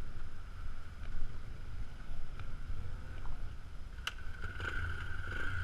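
Small watercraft engine running steadily on the water, with a high whine that gets louder about four seconds in, over a low rumble of wind on the microphone.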